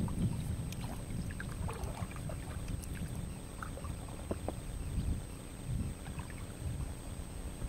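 Kayak paddle dipping into calm river water, with small splashes, trickles and drips running off the blades, over a low rumble.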